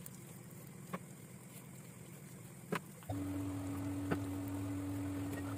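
A few sharp taps of a knife against a wooden cutting board as a raw chicken is cut up, the loudest just before a steady low hum switches on about three seconds in and keeps going.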